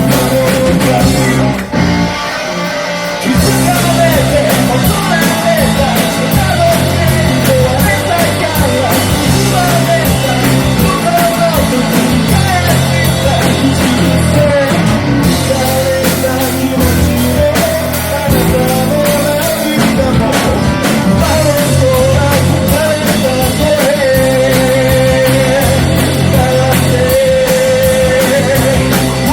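A rock band playing live, with a singer over the full band. The band drops out briefly about two seconds in, then comes back in.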